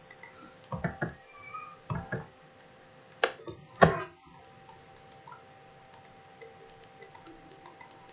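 Computer mouse clicks and handling close to the microphone: a few sharp clicks in the first four seconds, the loudest about four seconds in, then faint light ticks. A faint steady hum runs underneath.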